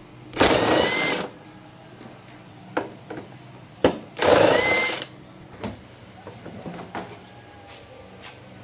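Cordless impact wrench running in two bursts of about a second each, driving a socket on the bolts in the floor of an electric scooter's seat compartment. A few short clicks and knocks from handling the bolts and parts come between and after.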